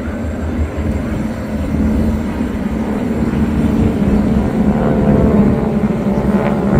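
Piston engines of a formation of propeller warplanes flying as Japanese Zeros, droning steadily overhead and growing louder as the planes approach.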